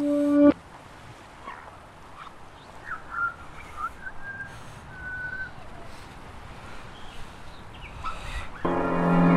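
Short, high, whistle-like chirps and gliding notes over a low hiss, with one note held briefly in the middle. A sustained musical chord cuts off about half a second in, and another loud chord begins near the end.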